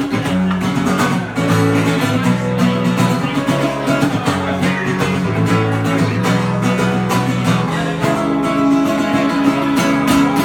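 Acoustic guitar strummed steadily in a live song accompaniment, with no singing.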